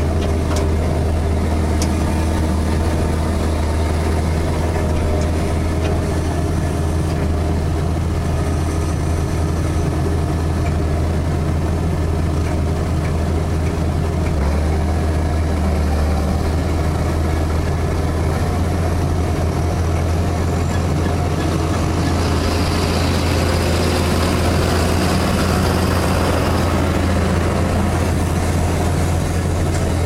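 A Cat Challenger 55 tracked tractor pulls an Underhaug 2600 potato harvester, giving a steady, heavy diesel drone mixed with the harvester's machinery noise. From about two-thirds of the way in, more higher-pitched engine and machine noise joins as a John Deere 6430 tractor with a bin trailer draws alongside.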